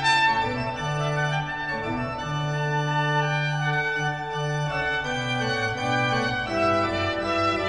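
Baroque music for organ and trumpet: the organ holds chords over a stepping bass line, with bright, sustained upper notes above.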